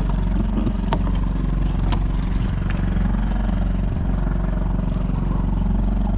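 Small Honda 2.3 HP four-stroke outboard motor running steadily on the kayak.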